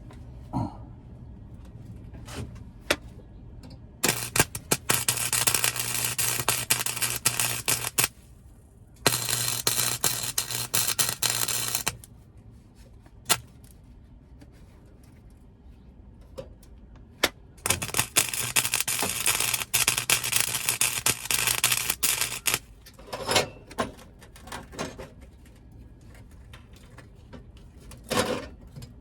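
Welding arc crackling on the sheet-steel floor pan in three bursts of a few seconds each, with a steady hum underneath while the arc is lit. There are a couple of shorter bursts near the end and a few small clicks and taps in the pauses between them.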